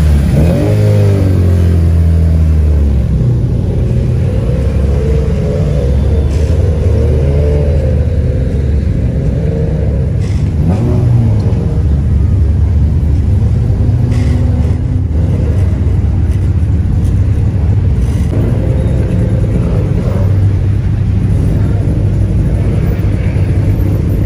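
Several modified cars' engines and exhausts running loud as they drive slowly past one after another, the revs rising and falling.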